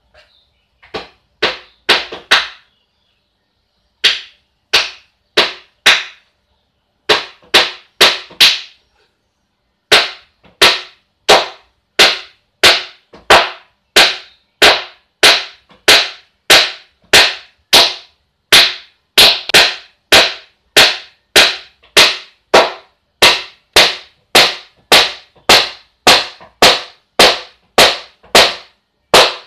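Hammer blows on wood, sharp and ringing briefly in the room. A few scattered blows come first, then a steady run of about one and a half blows a second.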